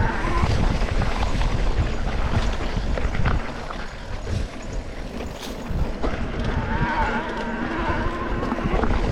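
Wind buffeting the microphone with a steady low rumble and scattered sharp ticks and knocks. A faint wavering tone rises and falls about seven seconds in.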